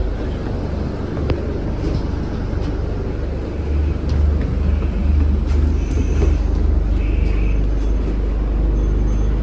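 Bus running along the road: a steady, loud low engine and road rumble, with a few faint short high-pitched squeals in the second half.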